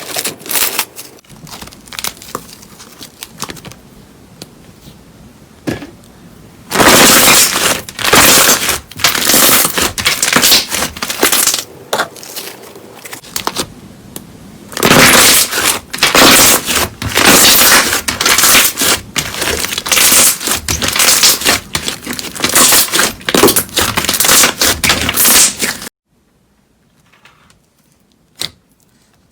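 Slime being squeezed and pressed by hand, giving off loud crackling and popping in dense bursts. The crackling stops abruptly near the end, leaving only a few faint clicks.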